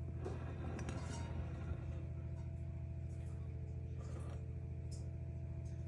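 Steady low electrical hum made of several held tones, with a few faint ticks.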